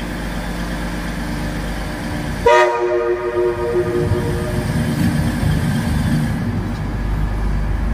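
A train horn sounds one blast about a second long, two and a half seconds in. It is followed by the low rumble of an LNER InterCity 225 train drawing slowly into the platform under the station roof.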